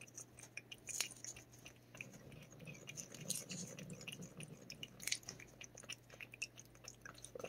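A cat licking paste treat from a squeeze packet: faint, irregular wet licking and mouth clicks, with a few louder smacks about one, three and five seconds in.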